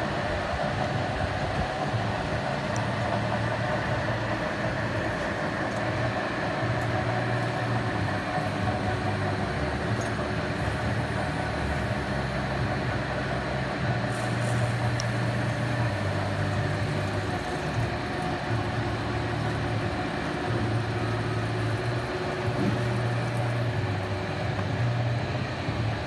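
Steady workshop machinery hum and rumble, with a low drone that cuts in and out every few seconds.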